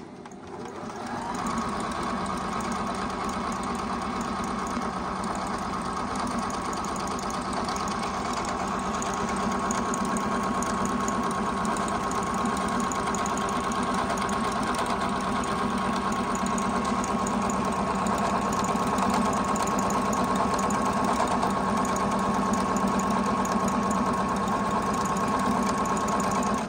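Juki HZL-009 computerized sewing machine running steadily on its own, stitching a selected decorative design. Its motor speeds up over the first second or two into a steady whine.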